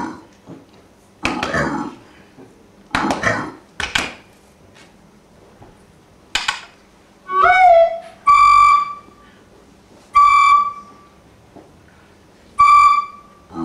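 Recorder played with extended techniques: several short, harsh, breathy blasts, then a note that slides upward, then three held notes on the same high pitch, each about half a second long, with pauses between.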